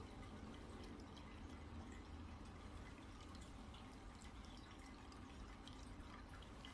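Near silence: faint room tone with a low steady hum and scattered soft ticks.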